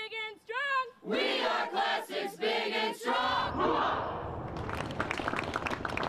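A drill leader's shouted command, then a large formation of students shouting back in unison about a second in, followed by crowd noise with clapping.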